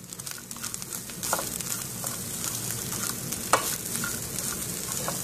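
Grated coconut, cashews and raisins sizzling in hot ghee in a pan as a plastic spatula stirs them, with a couple of sharp clicks of the spatula against the pan.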